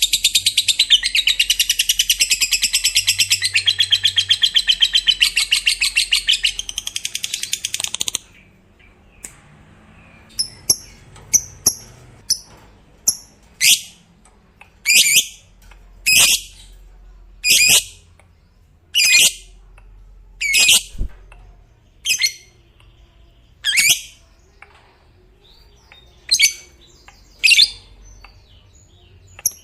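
Lovebird singing its long 'ngekek' chatter: a fast, unbroken stream of high shrill notes that stops abruptly about eight seconds in. It is followed by single sharp, shrill calls repeated roughly every second or so.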